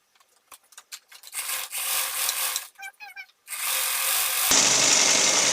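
Household sewing machine driven by an add-on electric motor, stitching through fabric folded in three layers: a short run, then running fast and steadily from just past halfway, louder near the end.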